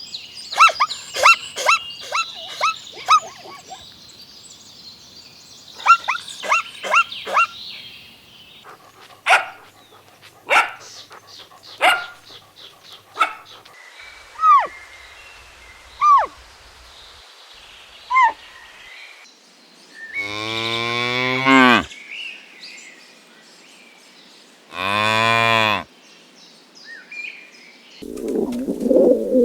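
A run of short, high yelps in quick bursts through the first half, then a cow mooing twice, each moo about a second and a half long.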